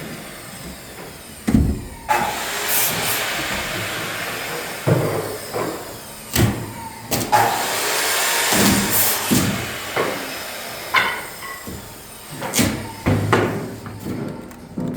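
Interior carpentry work: a series of sharp knocks and thuds from boards and tools being handled and struck, with stretches of hissing between them.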